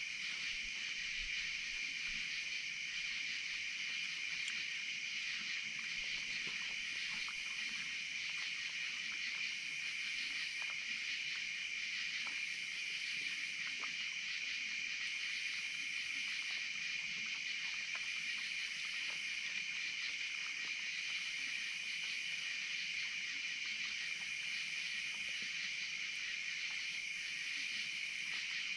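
Steady night insect chorus: a constant high-pitched buzzing trill, with a fainter, higher layer that pulses about every three seconds. Faint scattered clicks from the raccoons eating at the feeding table.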